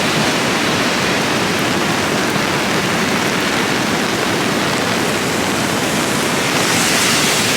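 Floodwater from a lake that has filled to overflowing, rushing steadily through a channel. It is a loud, even rush of water.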